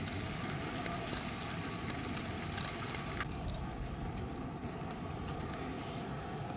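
Steady rushing noise with a faint continuous hum and scattered light crackles, unchanging throughout.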